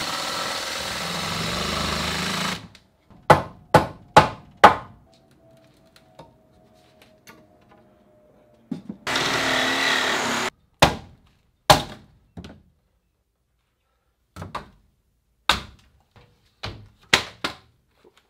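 A power tool runs in two bursts of a few seconds each, in wood framing, with a series of sharp knocks and thunks on the lumber in between and after.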